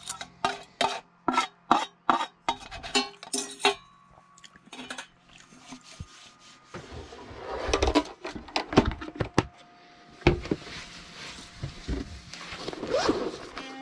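A metal spoon clicking and scraping against a stainless bowl in a quick series of clinks. From about halfway in, a paper towel rubs out a pan and then wipes a wooden tabletop.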